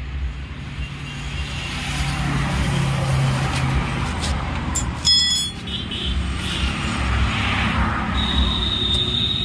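Road traffic running past: a steady low rumble of vehicle engines. A short, sharp high-pitched sound comes about five seconds in, and a steady high tone sets in near the end.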